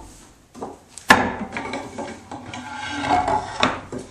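Wooden pieces knocked and slid on a wooden workbench: a sharp wood-on-wood knock about a second in, then scraping and rubbing with a few smaller knocks as a board is shifted and set in place.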